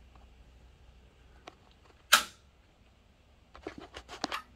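Revox B77 reel-to-reel tape deck being switched on: one sharp loud click about two seconds in, then a quick run of lighter clicks near the end, after which a faint low steady hum sets in.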